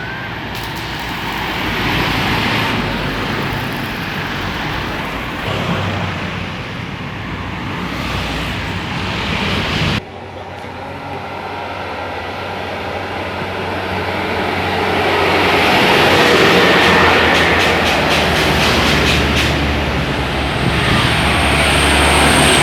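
Large buses passing on a busy road: diesel engines and heavy tyre-and-wind noise, breaking off abruptly about ten seconds in and then building again to its loudest in the second half.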